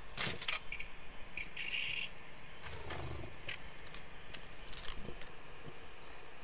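Quiet forest ambience: a steady high insect-like drone, a short high chirping call about two seconds in, and scattered faint clicks and rustles.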